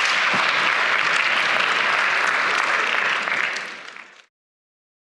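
Lecture-hall audience applauding, a dense crackle of many hands, which cuts off abruptly a little over four seconds in.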